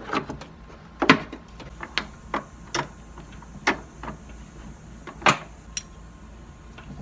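Irregular clicks and knocks of metal parts being handled and fitted, about ten in all at uneven spacing, the loudest about a second in and about five seconds in, as a car battery's hold-down hardware is put in place.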